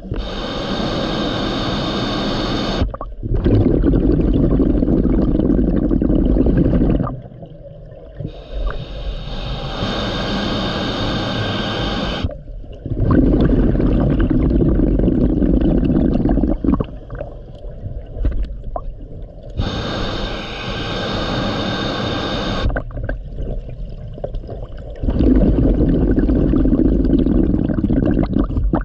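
Scuba diver breathing through a regulator underwater: three slow breaths, each a hissing inhale of about three seconds followed by a longer gurgling rush of exhaled bubbles.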